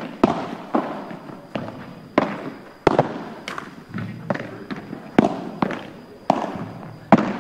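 Padel balls being struck by rackets and bouncing on the court: about a dozen sharp pops, roughly every half second, each fading out quickly.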